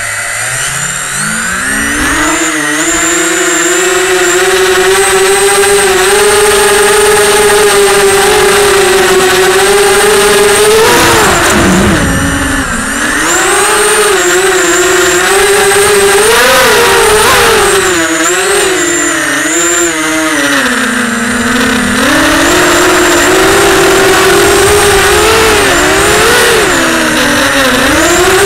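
Motors and propellers of a Storm SRD280 FPV racing quadcopter, heard from its onboard camera: a loud buzzing whine that rises in pitch as the motors spin up for takeoff, then wavers up and down with the throttle, dropping sharply in pitch twice.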